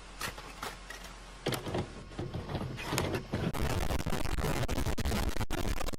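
Crackling static noise, building in level about a second and a half in and again past halfway into a dense, harsh hiss with brief cut-outs near the end.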